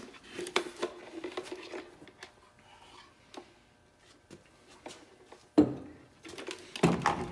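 Small metal parts of a fuel pump assembly being handled and set down: scattered light clicks and clinks, with louder clattering knocks about five and a half seconds in and again near the end.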